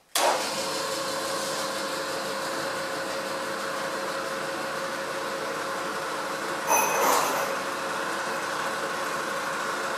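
Milling machine spindle motor switched on, starting abruptly and running steadily at low spindle speed with a whine of several steady tones over a hiss. A short clatter about seven seconds in.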